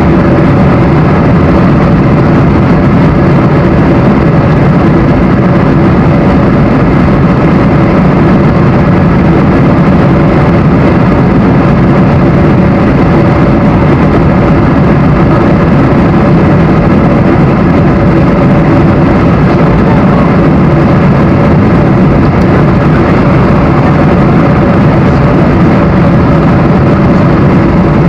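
Loud, steady jet engine and airflow noise inside the cabin of a Boeing 747-400 on approach with its flaps extended, with a few steady hum tones under the rush.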